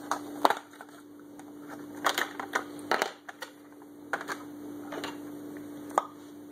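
Irregular clicks and knocks of things being handled, about ten in all, the sharpest about half a second in, around two and three seconds in and near the end, over a steady low hum.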